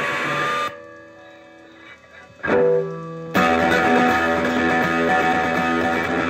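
Gibson Gospel acoustic guitar with a DeArmond pickup, played through a pair of Fender Champ amps turned all the way up. Ringing notes stop about a second in, a single note is picked about halfway through, then a loud, dense, distorted chord sounds from a little past halfway on.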